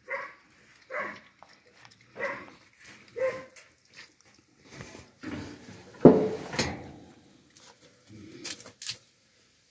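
A puppy giving short whimpering cries and yelps, one about every second at first, with the loudest sudden yelp about six seconds in and a few more near the end.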